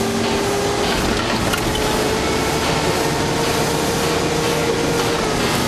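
Steady engine and road noise inside a moving Humvee's cabin, with a whining tone that slowly creeps up in pitch and falls away near the end.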